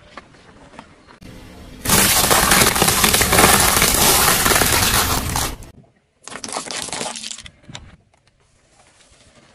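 Something brittle being crushed under a car tyre: loud crackling and crunching for about four seconds, which cuts off suddenly, then a shorter burst of crunching.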